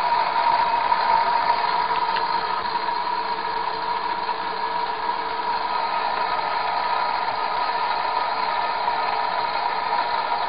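Van de Graaff generator's electric motor and belt running steadily, a constant whine over a hiss.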